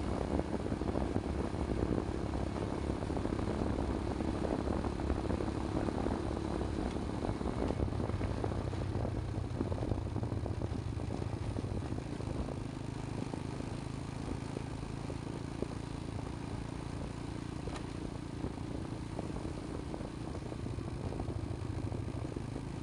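Motorcycle engine running steadily, heard from on board while riding, with its note shifting lower about eight seconds in.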